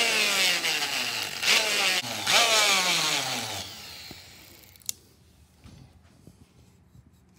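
Straight-bodied rotary tool spinning an abrasive cartridge roll inside a shotgun's steel magazine tube, sanding down raised metal left from flattened dimples. The motor's whine slides down in pitch several times, then stops about halfway through, followed by a single faint click.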